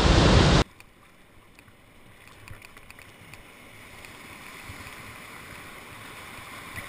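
Loud rushing roar of a waterfall that cuts off suddenly about half a second in. It gives way to the much quieter rush of whitewater heard from a camera aboard the canoe, slowly growing louder.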